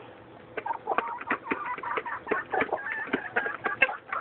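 Several chickens clucking and making short, soft calls while they feed, with many short sharp clicks scattered among the calls.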